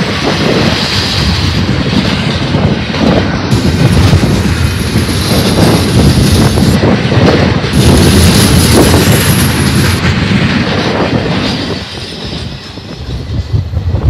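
Double-stack intermodal freight train's well cars rolling past close by: a loud, steady rumble of wheels on rail with clacking knocks and a high wheel squeal at times. The noise drops off about twelve seconds in as the last car goes by.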